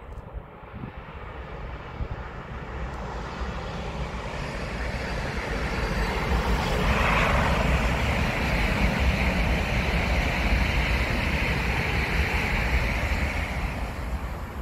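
A DB ICE 4 high-speed electric train passes close by at speed. The rushing sound of its wheels on the rails builds up as it approaches, stays loudest with a steady higher hiss while the cars go by, then eases off near the end.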